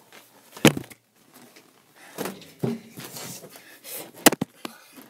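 Two sharp, loud cracks, the first about a second in and the second near the end, with shuffling and rustling of movement between them.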